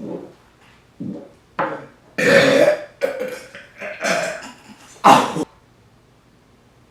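A person belching several times after downing a shot of carbonated soda. The loudest belch is a long one about two seconds in, followed by a few shorter ones and a short, sharp one about five seconds in.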